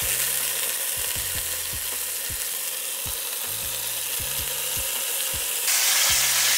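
Beef short ribs searing in hot avocado oil in an enameled cast-iron pot: a steady sizzle that grows louder near the end.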